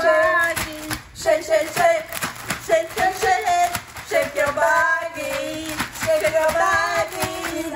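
Two women singing a repetitive shaking song while a zip-top bag of ice and rock salt is shaken, the ice rattling in quick, uneven clicks under the voices.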